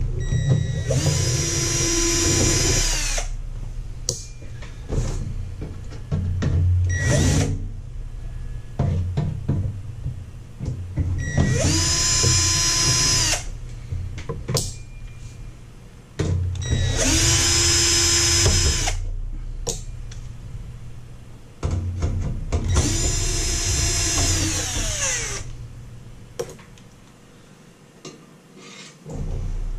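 Cordless drill-driver backing screws out of a toaster oven's sheet-metal case: four runs of a steady motor whine, about two seconds each, each dropping in pitch as the motor winds down. Clicks and clatter of handling fall between the runs.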